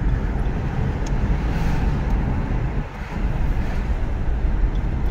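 Steady road and engine noise of a moving car heard from inside the cabin, a heavy low rumble of tyres on pavement, easing briefly about three seconds in.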